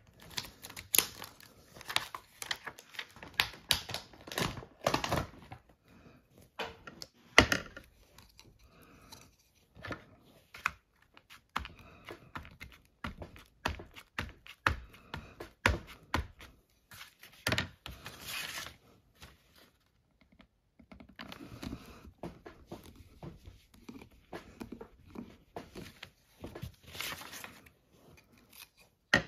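Sheets of paper being handled on a work surface: rustling and crinkling with scattered taps and knocks. A longer rustle comes about 18 seconds in and again around 27 seconds.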